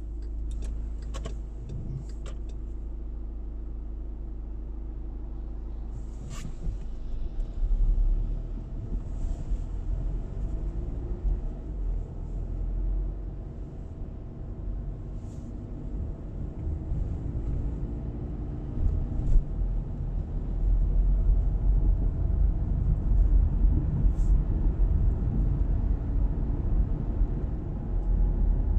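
A car driving on wet, part-snowy roads: steady engine and tyre rumble that grows louder about twenty seconds in, with a few sharp clicks in the first seconds.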